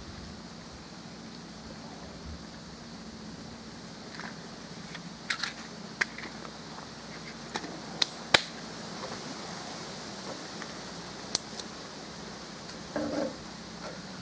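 Dry twig and grass kindling being lit in a steel mangal, giving scattered sharp clicks and snaps as the flame catches and the sticks begin to burn.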